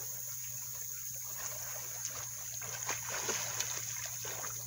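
Water splashing as children swim and kick in a shallow river, the splashes coming more often in the second half.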